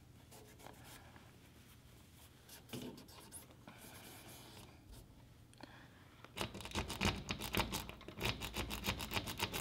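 Faint rubbing of a shop towel over a seized truck-topper T-handle lock, then, from about six seconds in, rapid metallic clicking and rattling as a key is jiggled back and forth in the lock cylinder to break it loose.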